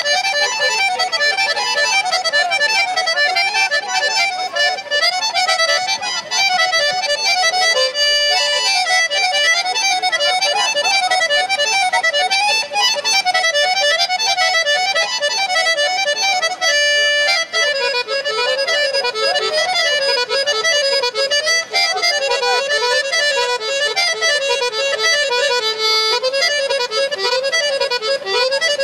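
Instrumental Romanian folk music: a fast brâu dance tune with a quick, busy melody line that settles briefly on a held note twice.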